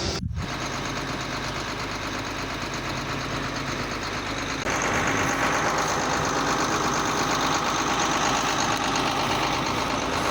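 Combine harvester running steadily while harvesting corn, a continuous machine drone of engine and threshing works. About halfway through it grows louder, with a stronger whirring.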